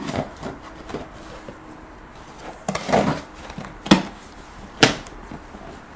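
Cardboard packaging being handled: rustling and scraping about three seconds in, then two sharp knocks about a second apart, as a headphone box is pulled out of a cardboard shipping box.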